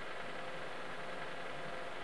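Steady hiss with a faint hum, an indoor room tone with no thunder or other distinct event.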